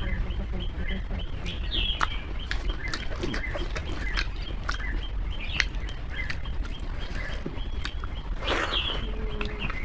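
Eating sounds: chewing with many short, sharp mouth clicks, over birds chirping in the background.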